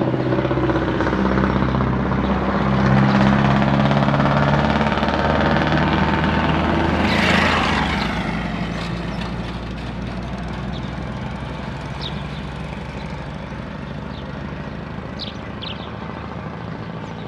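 A motor vehicle's engine running with a steady drone that swells and sweeps past about seven seconds in, then settles to a quieter background hum.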